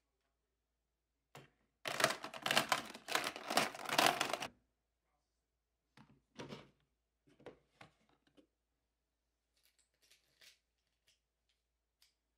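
Clear plastic storage drawers sliding in their plastic frame: a click, then a dense clattering plastic rattle for about three seconds, followed by a few lighter knocks and faint clicks as the drawers are opened and shut.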